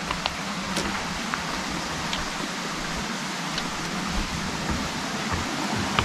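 Steady rushing hiss of a small mountain river running over stones, with a few faint ticks.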